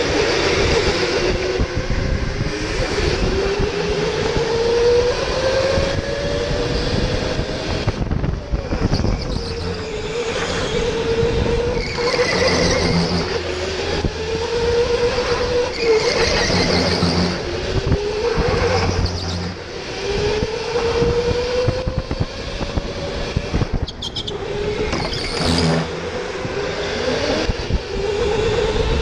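OTL Storm electric go-kart's motor whining, its pitch climbing slowly as the kart speeds up and then dropping back, again and again every three to four seconds, over a steady rushing noise.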